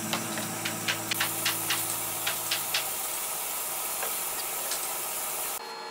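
Table saw in a woodshop with a steady hiss and a low hum that fades out, and a quick run of light ticks, about four a second, from about one to three seconds in, as a wide plank is handled on the saw table.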